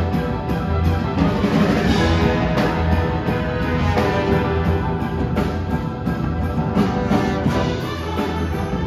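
Student concert band of woodwinds, brass and percussion playing together, full held chords over a steady low bass line.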